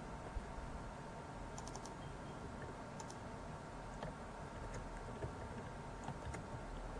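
Computer keyboard typing: scattered, faint keystrokes, some in quick little groups, over a steady low hum.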